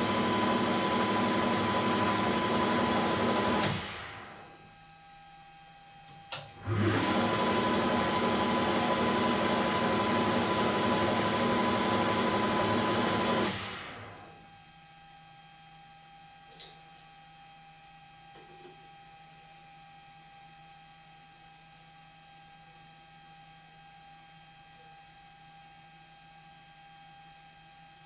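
Weiler Matador SV lathe spindle running steadily at about 2400 rpm with a whine. It spins down about 4 s in, starts again after a click around 7 s, then spins down to a stop about halfway through, leaving a faint hum with a few light metal clinks.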